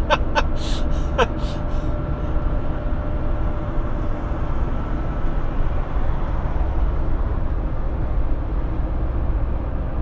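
Steady low engine rumble and tyre noise inside the cab of a Fiat Fiorino van driving on a highway.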